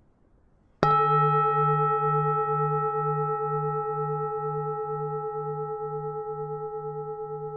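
A Buddhist temple bell struck once, a little under a second in: a bright strike followed by a long ringing tone that slowly fades, its low hum pulsing about two and a half times a second.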